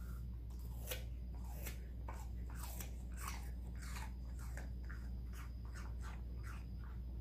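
Welsh Corgi puppy chewing pieces of raw apple, a string of irregular wet crunches from about a second in until near the end.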